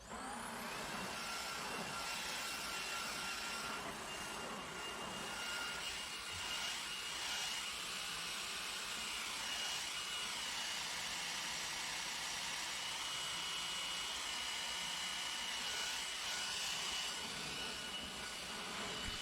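Panasonic cordless stick vacuum cleaner comes on abruptly and runs steadily: a rushing hiss of air with a thin, high motor whine on top.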